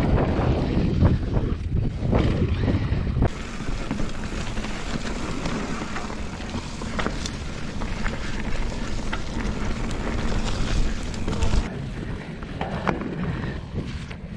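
Wind buffeting an action camera's microphone as a mountain bike rides a muddy, rooty trail, with scattered clicks and knocks from the bike rattling over the ground. The sound changes abruptly about three seconds in and again near the end.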